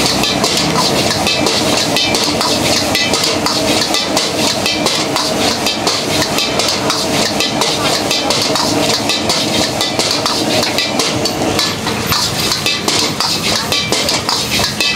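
Metal ladle scraping and clanking rapidly against an iron wok as fried rice is stir-fried over a gas wok burner, with the rice sizzling in the pan.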